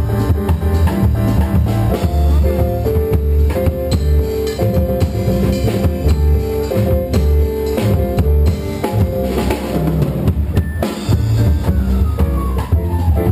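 Small live band playing: upright double bass, drum kit and guitar.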